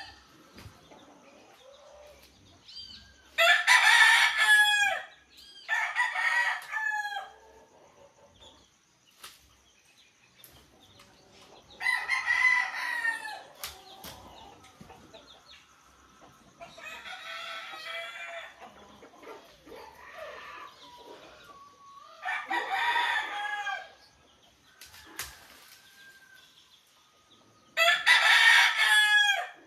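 Roosters crowing again and again: about six crows of a second or two each, some louder than others.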